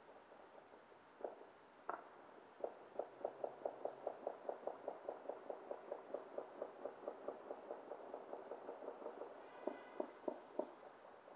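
Distant New Year's Eve bangs: two single reports, then a long rapid string of reports about five a second that fades over some seven seconds, then a few slower, separate reports near the end.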